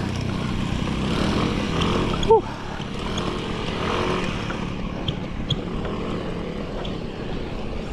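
Steady wind and road noise of a bicycle ride on a climb, with a short, sharp squeak that slides down in pitch about two seconds in.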